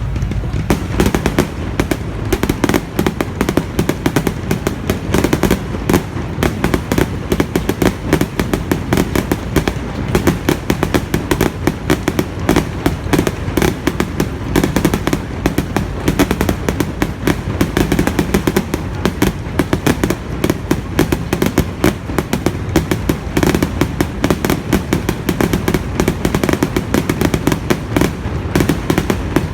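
Fireworks display: a dense, continuous barrage of sharp bangs and crackles, many per second.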